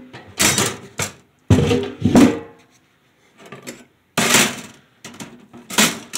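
Thin sheet-metal stove parts clattering and clanking as they are handled and set down on a wooden workbench: a series of short knocks, some with a brief metallic ring.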